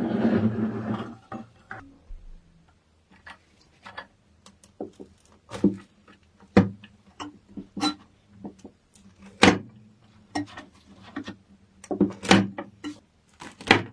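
A short rustling burst, then a run of irregular sharp clicks and knocks, like hard parts being handled and set down, over a faint steady low hum.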